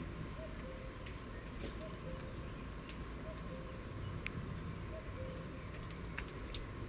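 Insects chirping in a steady, faint pulse, with a few soft scattered clicks.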